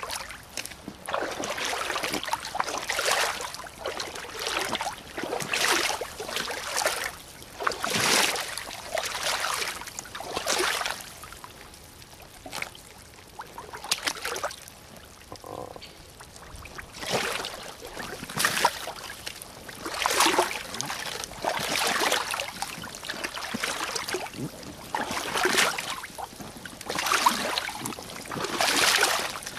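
Tall rubber boots wading through shallow flowing muddy water, splashing and sloshing with each step at roughly one step a second, with a quieter pause near the middle.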